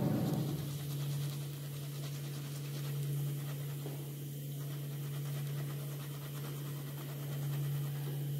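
Hot oil in a kadai sizzling faintly after the deep-fried cutlets are lifted out to drain, over a steady low hum.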